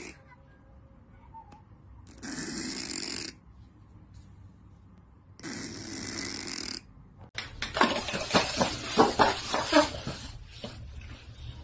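A fold-eared cat asleep on its back, snoring twice, each snore about a second long and about three seconds apart. Then a quick run of sharp clicks and knocks as upturned cups are moved about on a tile floor, louder than the snores.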